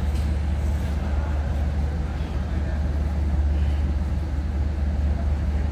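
Diesel engine of a narrow-gauge MBxd2 railcar running with a steady low drone as the railcar creeps slowly forward.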